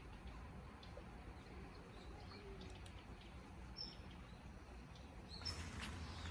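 Faint background noise with a few short, high bird chirps, and a brief rustling noise near the end.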